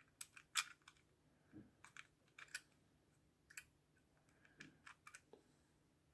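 Plastic battery-compartment cover of a Varta Battery Tester 891 being worked open by hand. A dozen or so short, sharp plastic clicks and taps come at irregular intervals, the loudest about half a second in.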